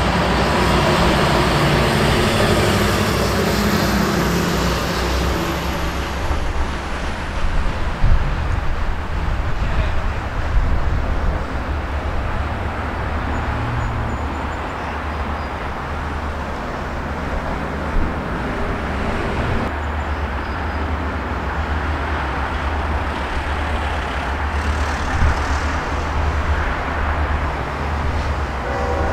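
Steady low rumble and road traffic noise as an Allegheny Valley Railroad diesel freight locomotive approaches slowly from a distance; a road vehicle's engine fades out over the first few seconds.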